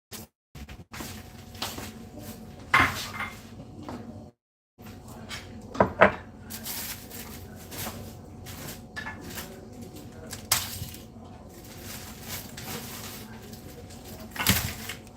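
Dishes, containers and shelves being handled, with repeated clinks and knocks and a few louder bangs, typical of emptying and cleaning out a refrigerator.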